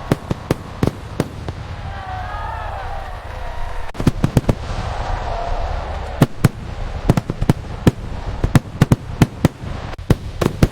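Fireworks going off: sharp cracks in irregular volleys, a cluster at the start, another about four seconds in and a dense run through the second half, over a steady low rumble of distant bursts. Faint voices of onlookers show in the gaps.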